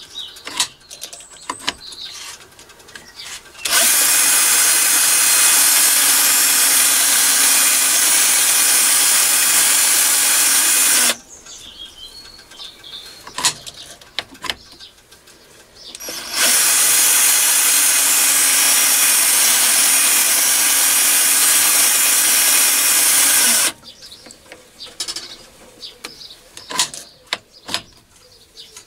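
Powered toolpost drill built from a Machifit spindle set, drilling holes in aluminium pipe on a mini lathe. It runs in two steady stretches of about seven seconds each, with quieter clicks and handling between them.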